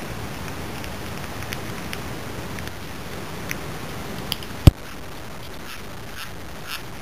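Kitten chewing kibble, making crunching, teeth-grinding sounds: scattered faint crunches at first, then regular crunches about twice a second near the end. A single sharp knock about two-thirds of the way through.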